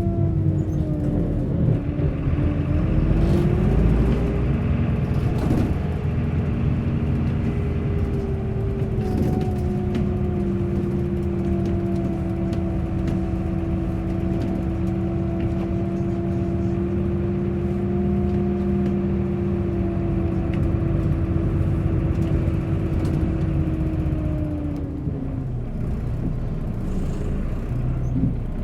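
Bus engine running while the bus drives. Its pitch rises a couple of seconds in as it accelerates, holds steady through the middle, then drops near the end as the bus slows.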